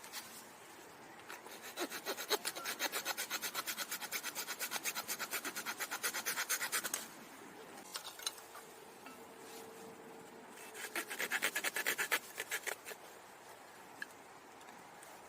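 A small hand saw cutting firewood in fast, even strokes. There are two bouts: a long one of about five seconds, then a short one of about two seconds after a pause.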